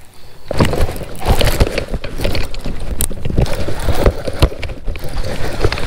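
Rapid clicks, rattles and rustling from a baitcasting reel and line being handled, over a low rumble, while a hooked fish is fought. The noise starts about half a second in and then runs on unevenly.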